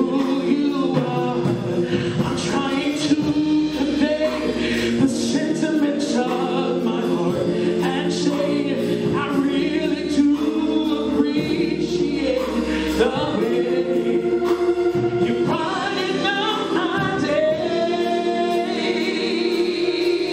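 A man singing a gospel song into a microphone over musical accompaniment, his voice carried through the church sound system.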